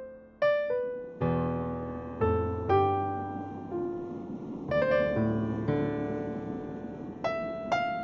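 Slow piano music: single notes struck one at a time and left to fade, with low bass notes coming in about a second in.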